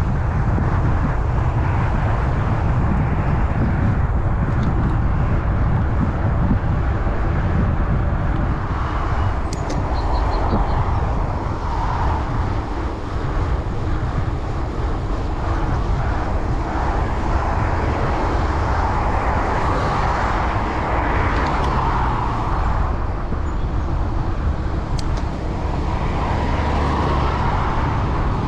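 Wind rushing and buffeting over the microphone of a chest-mounted action camera on a moving gravel bike, a steady loud rumble. Tyre noise sits underneath, with a few faint clicks.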